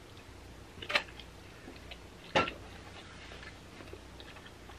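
Eating sounds: two sharp clicks about a second and a half apart, then a few faint small ticks.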